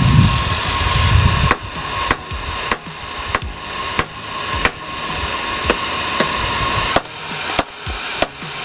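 Hand hammer blows forging hot high-carbon steel, a sharp strike with a short ring about every 0.6 s starting about one and a half seconds in, coming closer together near the end. A steady hum runs underneath, and a loud low rumble fills the first second and a half.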